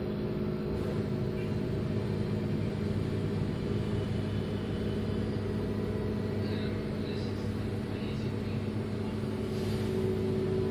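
LG front-load washing machine running, a steady motor hum with several held tones; a higher tone comes in near the end.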